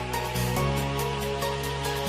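Electronic background music with a steady beat and a bass line that changes notes about every half second.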